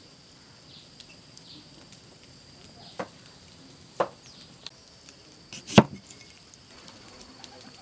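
Large kitchen knife slicing a cucumber on a wooden cutting board: three sharp chops about a second or two apart, the last the loudest.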